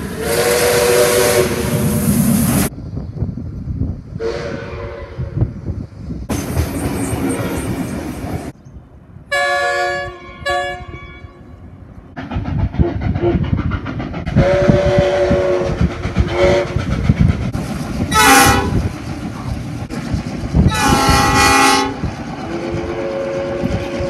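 Train horns from several different trains, edited one after another: a series of long and short chord blasts, including two short sharp toots about ten seconds in. The rumble and clatter of the trains runs underneath.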